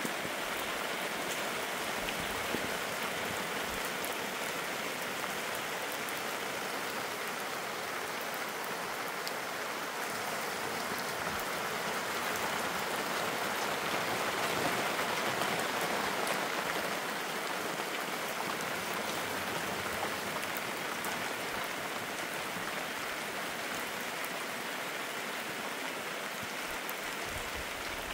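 Steady rain falling, swelling a little louder for a few seconds in the middle.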